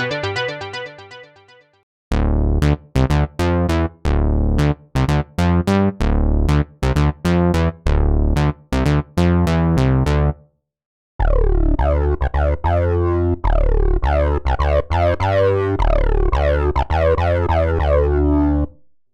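Software synthesizer presets being demoed. A held sound fades out, then a rhythmic run of short, punchy bass-heavy notes plays. After a short break about ten seconds in, a second pattern of short notes follows, each with a quick downward sweep in tone.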